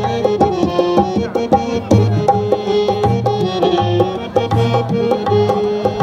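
Live harmonium and dholak playing: held harmonium notes and chords over a quick, steady rhythm of hand strokes on the barrel drum.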